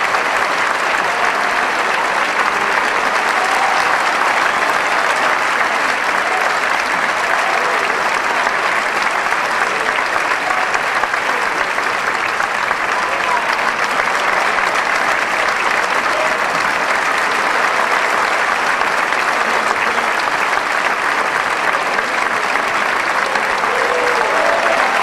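Theatre audience applauding steadily during opera curtain calls, with a few faint voices calling out.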